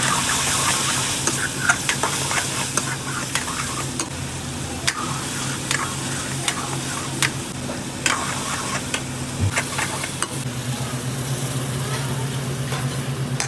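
Curry gravy sizzling in a hot pan while it is stirred with a metal ladle, the ladle clicking and scraping against the pan at irregular moments. A steady low hum runs underneath.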